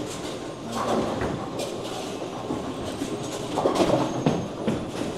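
Bowling centre din: a steady rumble of balls rolling down the lanes, with a few sharp clatters of pins being struck on nearby lanes.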